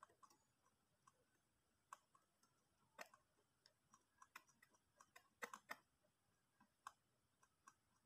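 Faint, irregular clicking of a computer mouse scroll wheel as a document is scrolled, the clicks coming in loose runs with the loudest a little past five seconds in.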